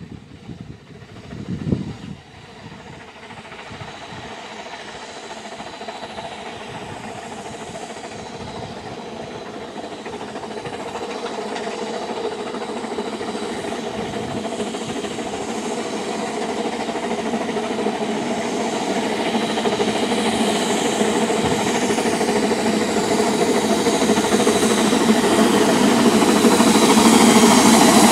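Ffestiniog Railway narrow-gauge steam locomotive hauling a train of carriages, working with smoke at the chimney, its running noise growing steadily louder as it approaches.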